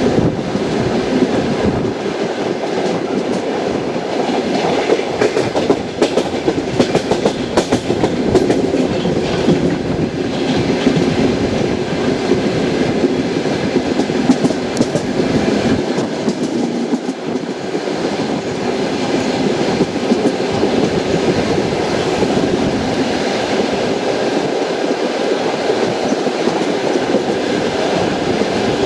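Passenger train wheels running over the rails: a steady rumble with the clickety-clack of wheelsets crossing rail joints. A cluster of sharper clicks comes about a quarter of the way in.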